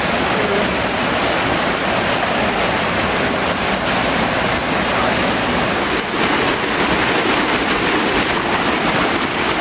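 A mountain stream pouring down a whitewater chute close by: a loud, steady rush of water.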